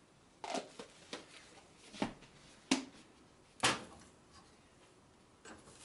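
Dishes and a plastic food container handled on a stovetop: about five separate light knocks and clicks a second or so apart, the two loudest near the middle.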